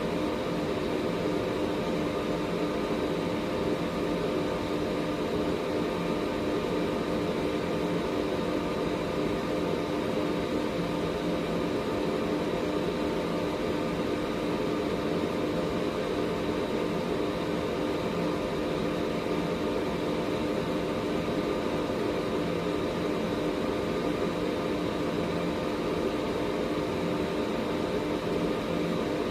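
Air purifier running steadily: an even rush of air from its fan over a constant motor hum, with a faint high whine.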